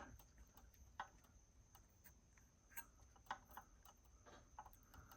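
Near silence with a few faint, scattered light clicks and taps of small parts being handled.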